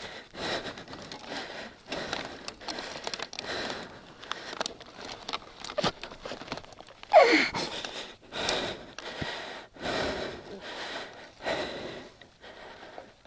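A person breathing hard and panting with exertion, with one loud strained exhale about seven seconds in, while struggling to lift a fallen motorcycle; light crackling and clicks of brush and gear come in between.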